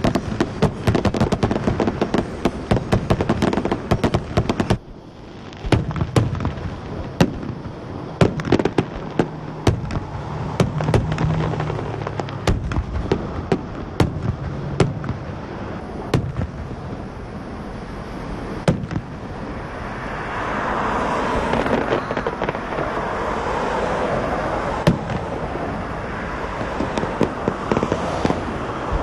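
Fireworks display: a rapid, dense volley of bangs and crackles that breaks off about five seconds in, then scattered single bangs, with a steadier noisy stretch in the second half.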